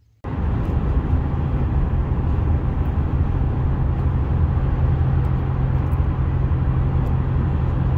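Steady road and engine noise inside a car driving at highway speed, with a constant low hum. It cuts in abruptly a moment after the start.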